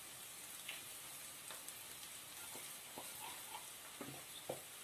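Faint, steady sizzle of a tempering of cashews, peanuts, chana dal, onion and chillies frying in oil in a pan, with a few soft ticks scattered through it.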